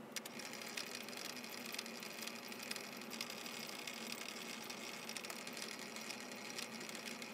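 Metal lathe running with its chuck spinning: a steady hiss full of small rapid ticks that starts just after the beginning and stops near the end, over a low steady hum.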